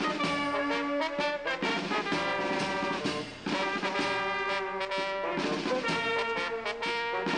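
Brass band playing: held chords in short phrases with brief breaks between them.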